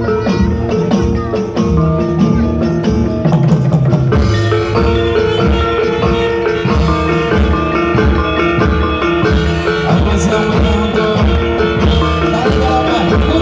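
Gamelan music: metal-keyed mallet instruments ring out a repeating melody over steady drumming, the ensemble growing fuller about four seconds in.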